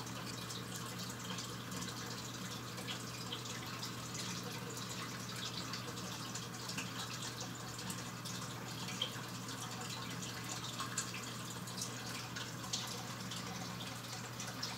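Steady background of trickling, dripping water over a low hum, with small scattered ticks.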